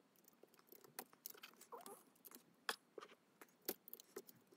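Faint, irregular small clicks and scratches of a screwdriver tip working against the plastic chassis of a Tri-ang OO-scale Class 37 model locomotive, prising its motor loose.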